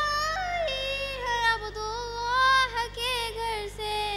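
A girl singing a naat solo into a microphone, drawing out long held notes that glide and waver in pitch. A steady low electrical hum runs underneath.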